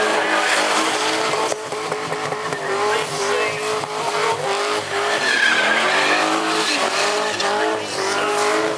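Holden Commodore sedan doing a burnout: the engine is held at high revs with its pitch wavering and dipping now and then, over the continuous screech of the rear tyres spinning on the pad.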